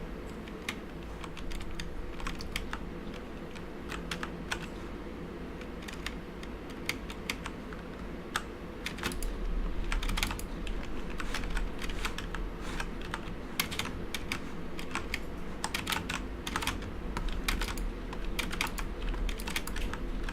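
Typing on a Corsair K70 mechanical keyboard with Cherry MX Brown switches, its keys damped by 40A-R rubber O-rings: a steady run of irregular key clicks, growing faster and louder about halfway through.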